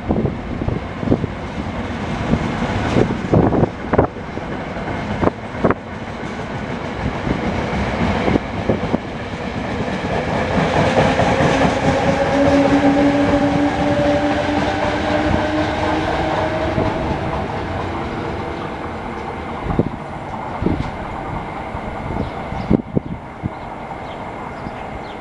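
NJ Transit passenger train passing at close range, its coaches clicking over the rail joints. The sound builds to its loudest about halfway as the locomotive at the rear goes by, with a two-note hum that rises slightly in pitch, then fades.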